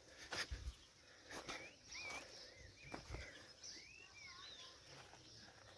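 Faint birds chirping: a string of short, curling whistled notes over a couple of seconds, with a few soft knocks near the start and about three seconds in.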